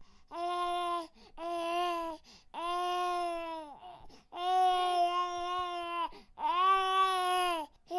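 Baby crying: five wails in a row, each about a second long, with short breaks for breath between them. The pitch of each wail holds steady and drops off at its end.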